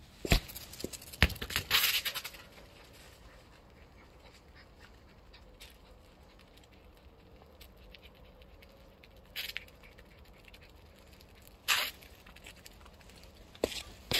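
A few sharp knocks of a football kicked and bouncing on concrete paving, two close together in the first second and a half and a few more near the end, with long quiet stretches between.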